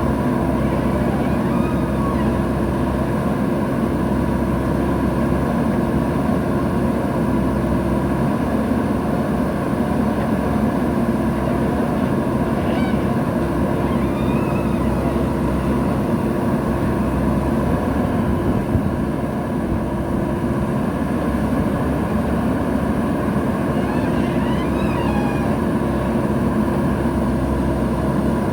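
Diesel engine of a JCB backhoe loader running steadily, a constant engine drone with a steady whine over it.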